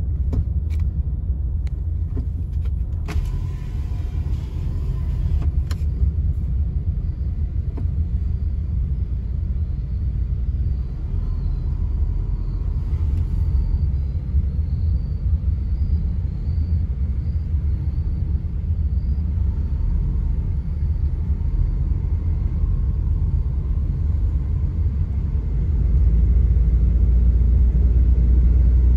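Low, steady road and engine rumble of a moving car heard from inside its cabin, growing louder near the end.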